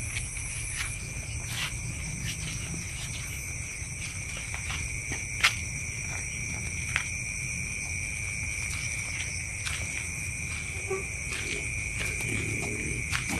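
Night insects chirring steadily at several high pitches at once, with a few sharp clicks, the loudest about five and a half seconds in.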